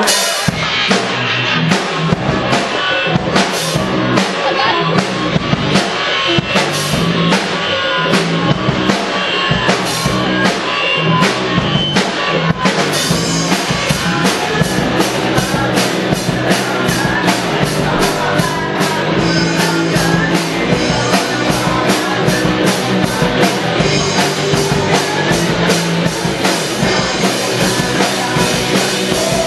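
Rock band playing live, led by a drum kit with kick drum and cymbals. The cymbal strokes come thicker and faster from about halfway through.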